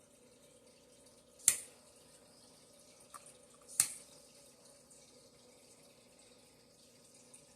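Small torch on a low flame hissing faintly and steadily, with two sharp clicks about two seconds apart, the first about a second and a half in.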